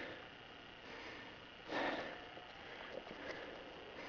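A person sniffing or breathing close to the microphone, one short breath about two seconds in, over a steady hiss.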